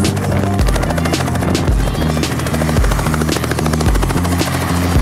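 Small two-blade helicopter running and lifting off into a low hover, its rotor and engine noise mixed with funk background music that has a steady beat.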